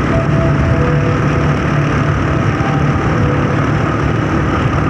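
Motorcycle engine running steadily at speed, with road and wind noise, inside a road tunnel.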